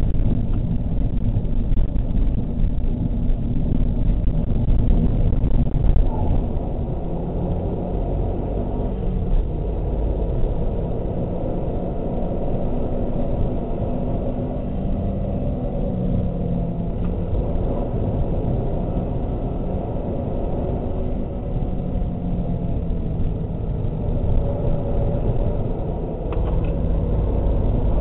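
Mazda 3 MPS's turbocharged 2.3-litre four-cylinder engine running hard on track, heard from inside the cabin, its pitch rising and falling as the car accelerates and shifts between corners.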